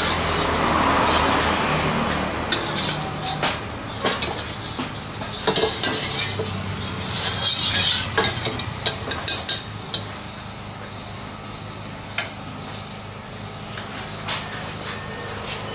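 Steel ladle clinking and scraping against a stainless steel wok holding oil, in a run of sharp clinks that thin out near the end, over the steady rush of a gas burner.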